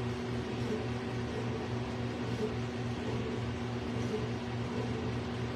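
A steady low hum with a few held tones and a faint regular pulsing underneath.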